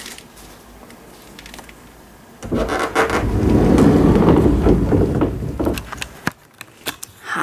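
Wooden sliding wardrobe door rumbling along its track for about three and a half seconds, followed by a few light clicks as it comes to rest.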